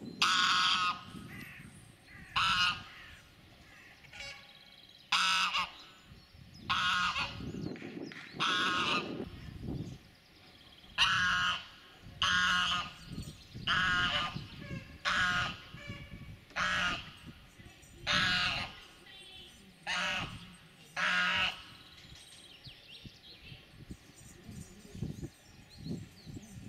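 White domestic goose honking over and over, about a dozen loud honks a second or so apart, then quieter near the end. It is territorial honking from a goose guarding its ground.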